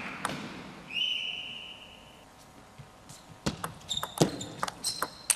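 Table tennis ball clicking sharply and irregularly off the table and bats from about three and a half seconds in. Earlier there is a steady high tone lasting about a second.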